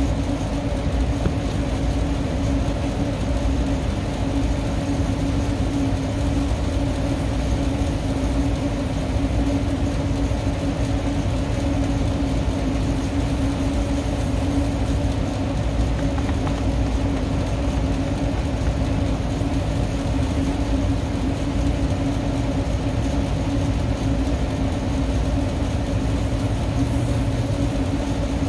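Steady hum of rooftop HVAC machinery running, with a constant low drone that does not change.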